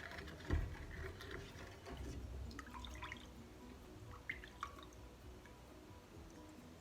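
Spoon stirring sugar-and-molasses syrup in a pot: liquid sloshing, with a dull knock about half a second in and a few light clicks of the spoon against the pot.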